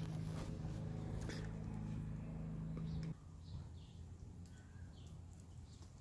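A steady low hum that cuts off abruptly about three seconds in, leaving faint high chirps.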